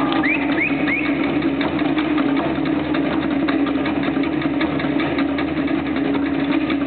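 Tahitian drum ensemble, led by to'ere slit drums, playing a rapid, steady ote'a rhythm. Three short rising whoops from the audience come in the first second.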